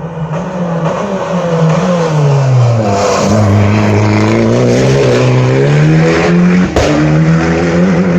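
Rally car engine braking into a hairpin, its revs dropping, then revving hard as it accelerates out. A gear change about seven seconds in briefly breaks the note.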